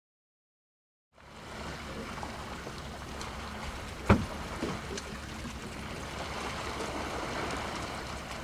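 Steady wash of water around a small fishing boat on open bay water, starting after about a second of silence. About four seconds in comes one sharp knock, the loudest sound, with two fainter knocks just after it.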